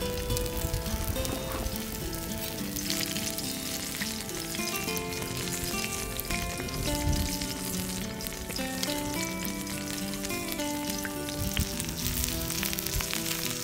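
Whole shrimp and a sausage sizzling in oil in a skillet over a wood campfire, a steady frying hiss. Background music with held notes plays over it.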